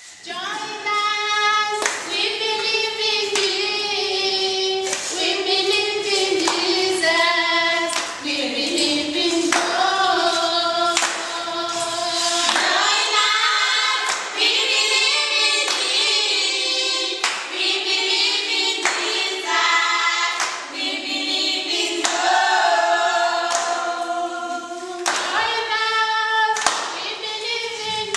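A group of voices singing together in unison, with hand claps keeping a steady beat.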